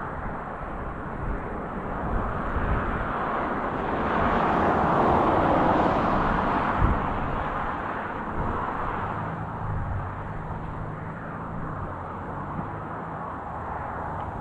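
Farm harvest machinery running: a steady engine and mechanical rush that swells about four to seven seconds in, with a single knock near the peak, then settles into a lower engine drone.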